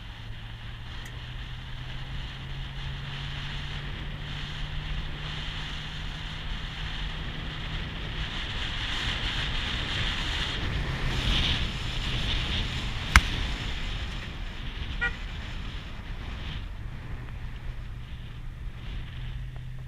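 SUV engine running at low speed on a dirt road, a steady low hum that climbs a little and later drops back, under a haze of wind and road noise on the roof-mounted microphone. A single sharp click about 13 seconds in.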